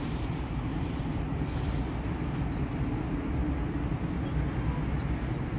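Steady low rumble of city traffic.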